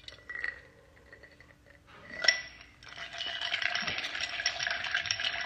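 A sharp clink a little over two seconds in, then about three seconds of dense, rattling clatter of small hard objects.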